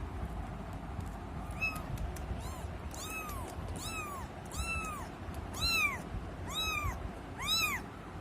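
A kitten mewing again and again: about eight short, high meows, each rising and then falling in pitch, roughly one a second, beginning about a second and a half in.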